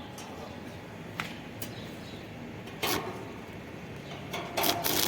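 Iron door parts being handled: a few light clicks, a sharper knock about three seconds in, and a short clatter of knocks near the end.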